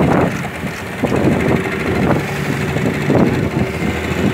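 A fishing boat's engine running steadily, with water washing against the hull and wind on the microphone.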